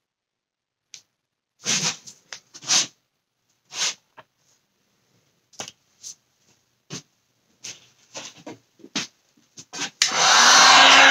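Scattered light taps and clicks of tools and handling, then about ten seconds in an electric heat gun switches on and runs with a steady loud blowing rush and a low hum, blowing over the wet epoxy resin.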